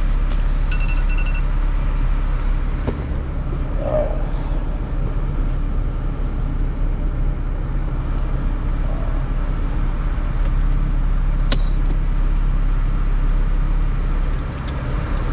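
Steady low drone of a Honda Civic Si idling, heard from inside the car, with a sharp click about eleven and a half seconds in.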